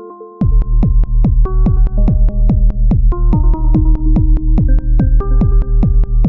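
Elektron Model:Cycles groovebox playing a techno pattern: a melody of short synth notes, joined about half a second in by a heavy kick drum and bass in a steady beat of about two kicks a second, with hi-hats between.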